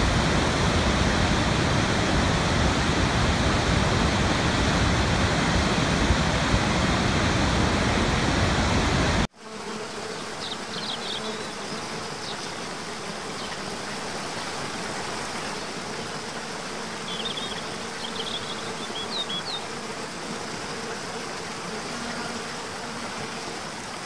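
Rushing water of a large waterfall, loud and steady; about nine seconds in it cuts off abruptly to the quieter rush of a smaller cascade, with a few short, high chirps over it.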